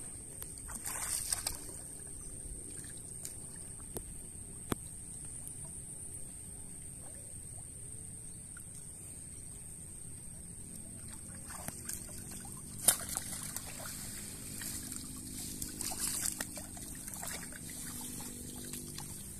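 Water sloshing and trickling around a person wading in a shallow channel and working a sunken cast net with his hands, ending with the net being lifted out of the water. One sharp knock about 13 seconds in is the loudest moment.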